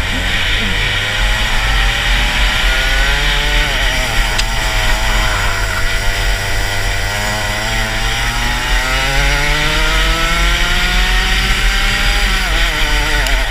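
Rotax Max 125cc single-cylinder two-stroke kart engine under load, its pitch climbing steadily along the straights, dipping briefly about three and a half seconds in and falling sharply near the end as the kart slows for a corner, then climbing again. The kart is geared long at 72/12, which the owner says made it slow to pull out of the tight corners.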